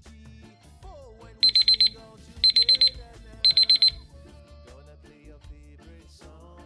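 Digital alarm-clock beeping: three bursts of four quick, high beeps, about a second apart, signalling that the countdown timer has run out. Background music plays under it.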